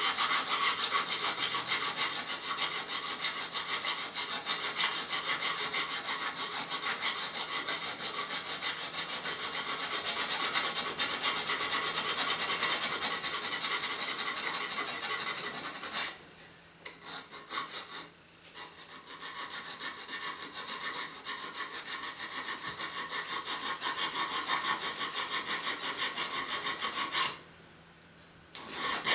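Hand file rasping back and forth in quick strokes on the edge of a sheet-metal printer part, easing an opening that is still too tight to seat its rail. The strokes stop briefly about two-thirds of the way in and again near the end.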